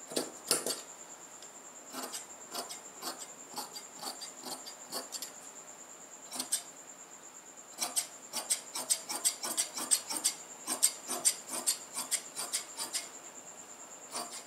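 Large tailor's shears cutting through cloth, cutting out a kurti's back panel: a run of snips with the cloth rustling, sparse at first, then quick, closely spaced cuts from about eight seconds in.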